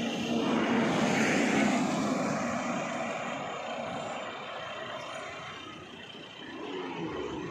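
Vehicle engine and road noise: an even rushing drone that swells loudest over the first couple of seconds, then slowly fades and rises a little again near the end.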